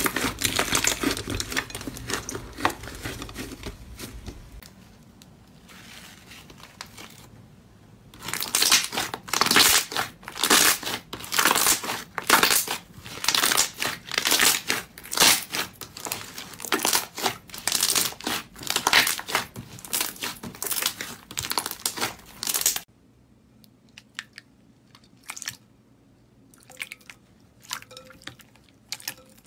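Crunchy slime being squeezed and pressed by hand, giving dense crackling and popping. It eases off a few seconds in, then comes back loud. About 23 s in the sound drops suddenly to a few soft clicks and small pops.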